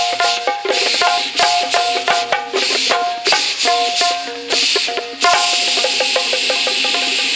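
Ghungroo ankle bells imitated by mouth into a microphone: rapid jingling clicks over qawwali accompaniment of keyboard notes and hand drums. A little over five seconds in, the clicks give way to a steady hissing jingle.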